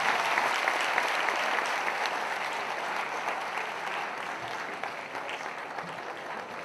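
Audience applauding: dense, even clapping that slowly fades.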